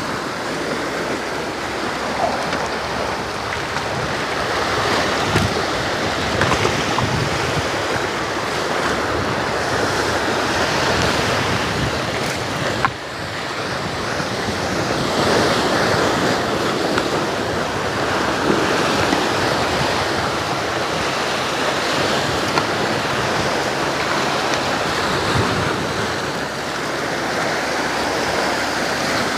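Sea waves washing steadily against the rocks, with some wind buffeting the microphone.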